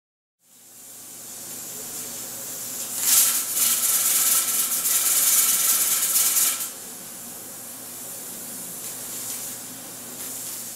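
All American pressure canner's weighted regulator, set at 10 psi, hissing steam from the vent pipe, then jiggling and rattling for about three and a half seconds with a louder rush of steam before it settles back to a steady hiss. This is a good jiggle, the sign that the canner is holding its set pressure.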